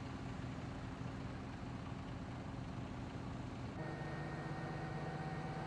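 Steady engine noise, like a vehicle running. About four seconds in the sound changes abruptly to a steadier hum with several held tones.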